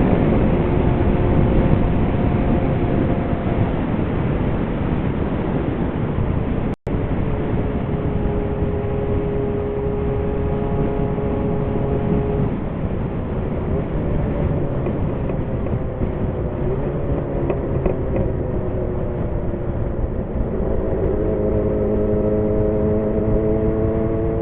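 Kawasaki Zephyr 750's air-cooled inline-four running steadily through an MRS aftermarket muffler, under a dense low rush of wind on the microphone. The engine tone holds steady and shifts pitch a few times. The sound cuts out for an instant about seven seconds in.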